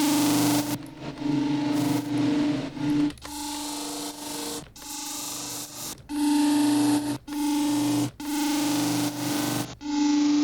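Amp-distorted synth bass patch playing a run of gritty, noisy held notes separated by short gaps, with reverb added.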